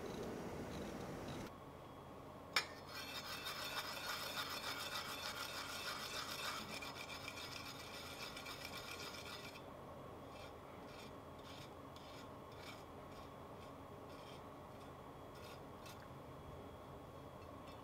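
Ginger being grated on a metal grater: a sharp click about two and a half seconds in, then steady dense rasping for about seven seconds. After that come lighter scratches and ticks as a wooden skewer scrapes the grated ginger off the grater's teeth. Before the grating, a soft scraping of ginger skin being peeled off.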